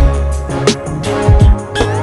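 Background music with a steady beat: pitched notes over regular deep drum thumps and sharp hits.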